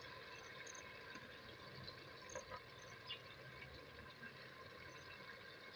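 Near silence: a faint steady hiss with a few small ticks or pops.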